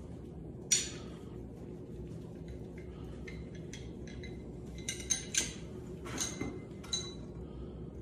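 Sharp metallic clinks and taps, one about a second in and a cluster in the second half, as parts of a Leaktronics sound-plate pickup and its metal handle are fitted together, over a steady low hum.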